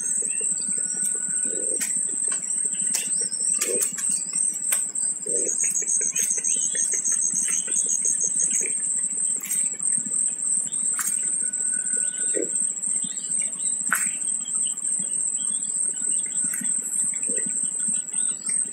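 Spotted dove squab fluttering its wings and jostling in the twig nest as the parent feeds it, with soft flutters every few seconds. Under it runs a steady high-pitched whine, with a short fast trill near the middle and faint chirps from other birds.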